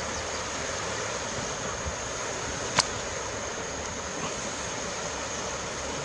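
Steady rushing of river water over rapids, with one sharp click about three seconds in.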